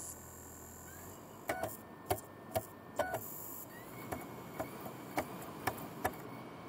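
Optical disc drive's mechanism clicking about twice a second, with a faint thin whine under the later clicks.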